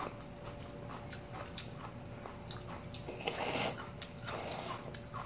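Noodles being slurped off chopsticks: a loud hissing slurp about three seconds in and a shorter one a second later, after light chewing with small clicks.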